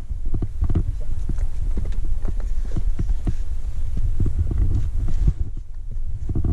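Footsteps and hands of a climber on rock, an irregular run of knocks and scuffs, pausing briefly about five seconds in, over a steady low rumble.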